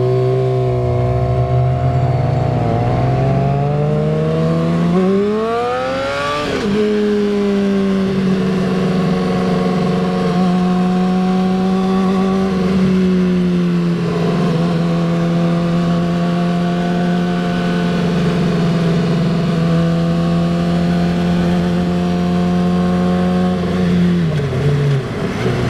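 2008 Honda CBR600RR inline-four engine through a Two Brothers aftermarket exhaust while riding. It accelerates with rising pitch, drops pitch at about six seconds as it shifts up, then cruises at a steady engine speed. It eases off near the end.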